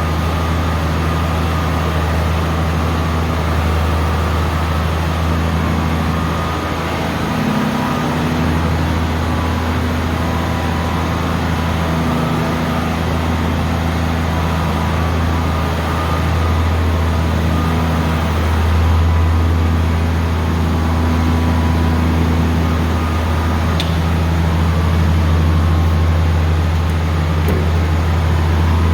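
Combine harvester's engine running steadily, a low steady hum that dips briefly about seven seconds in.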